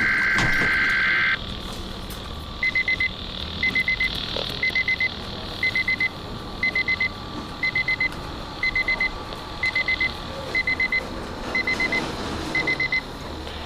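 Weather radio receiving the monthly test alert: it opens with a short, loud warbling data burst of the alert header, then the radio's alarm beeps in quick groups of four, about once a second, over a faint steady tone.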